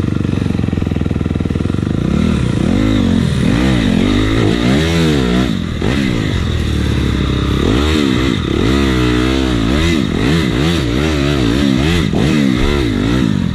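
Demon X 170 pit bike's 170cc single-cylinder four-stroke engine, heard from on the bike, revving up and down over and over as the rider works the throttle on a dirt trail. From about two seconds in, the pitch swings up and down about once a second, with rattles and knocks from the bike over rough ground.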